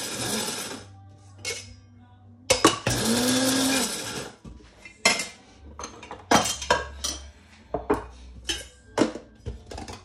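Electric blade spice grinder whirring in short bursts as it grinds whole spices: a brief burst at the start and a longer one of about two seconds near the third second. After that comes a run of sharp knocks and clicks from the grinder being handled.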